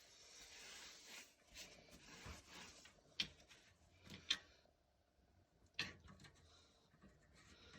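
Faint handling noise with three sharp clicks, about three, four and six seconds in.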